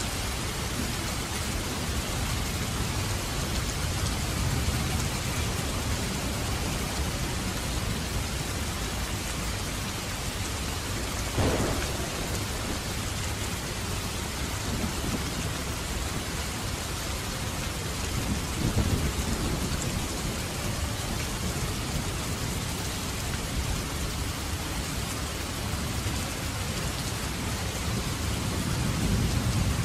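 Steady heavy rain hissing, with low rumbles of thunder swelling about 19 seconds in and again near the end. A sudden sharp crack comes about 11 seconds in.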